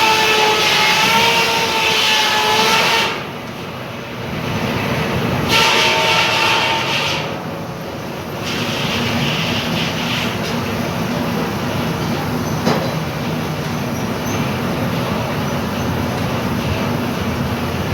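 Steam engine whistle blowing, held until about three seconds in, then a second blast of about a second and a half around six seconds in, over the steady running rumble of the engine and machinery.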